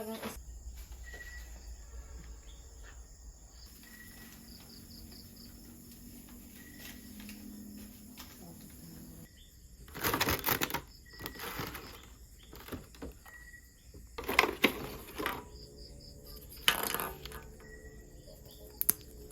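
Crickets chirping, with a few short bursts of rustling and several sharp knocks about halfway through and toward the end.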